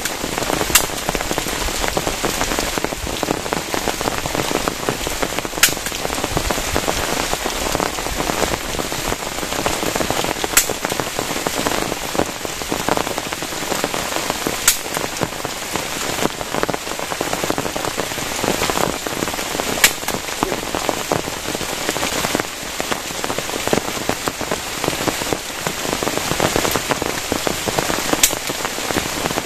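Heavy rain falling steadily, with single louder drops striking sharply every few seconds.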